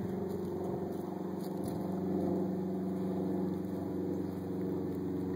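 A steady, low mechanical hum with a constant pitch, like an engine running at idle.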